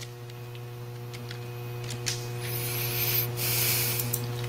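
Steady low electrical hum, with a rushing hiss that swells about two seconds in and cuts off just before the end.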